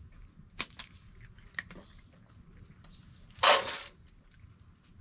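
Cats crunching dry kibble: a few sharp crunches and clicks. About three and a half seconds in, a brief louder rattle as dry cat food is tipped into a steel bowl.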